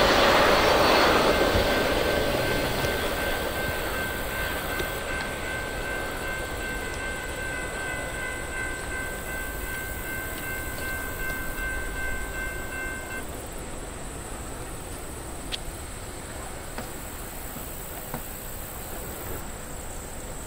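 Big Boy 4014's passing train rumbling loud at first and fading as it moves off, then a long, steady multi-note chime whistle held for about ten seconds from the head end, over the rolling noise of the passenger cars.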